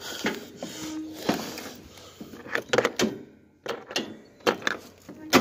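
A Yard Machines lawn tractor's weak starter being energized with the key: a series of short clunks and brief stabs as it tries but fails to crank the engine over, with a sharp pop near the end taken for a backfire.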